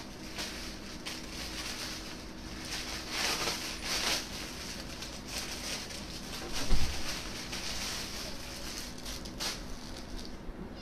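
Rustling as a folded cloth blouse is handled and unfolded, with a soft thump about two-thirds of the way in, over a faint steady hum.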